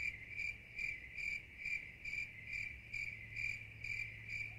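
Steady, even chirping at about two chirps a second, high and unchanging in pitch like a cricket's, over a low steady hum.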